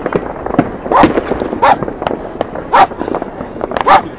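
Fireworks and firecrackers going off in many sharp bangs and pops, with a dog barking four times, about once a second. The barks are the loudest sounds.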